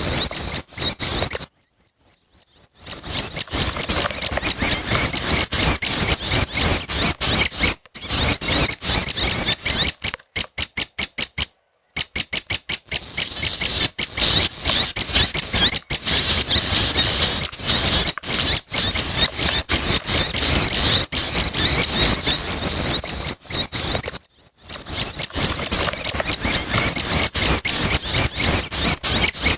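Young prenjak kepala merah (a small tailorbird-type songbird) calling: a loud, dense run of rapid high-pitched chirps and squeaks. It breaks off for about a second early on, and there is a stretch of short, evenly spaced chirps around the middle.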